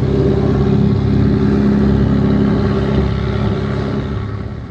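Longtail boat engine running steadily under way at cruising speed, with a steady low drone; it fades near the end.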